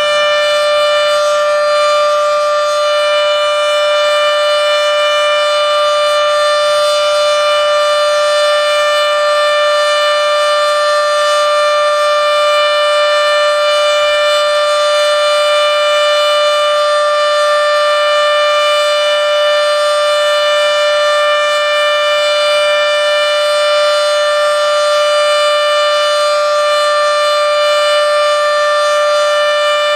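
Federal Signal Model 7B outdoor warning siren sounding a long, steady alert tone. It holds one unwavering pitch at a constant, extremely loud level, short of the siren's full pitch.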